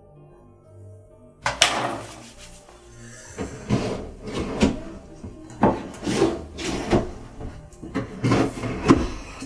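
Wooden bathroom vanity drawers being pulled open and rummaged through. A sudden loud slide and knock comes about a second and a half in, followed by a string of knocks and rattles as things in the drawers are pushed around.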